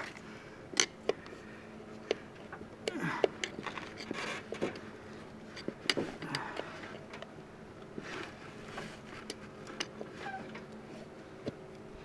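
Scattered clicks, knocks and short rubbery scrapes as the bead of a garden-tractor rear tire is pried and worked against the steel rim with tire irons.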